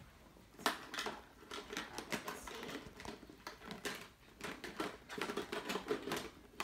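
Irregular clicking and clattering of small plastic items being rummaged through in a plastic storage bin, starting under a second in.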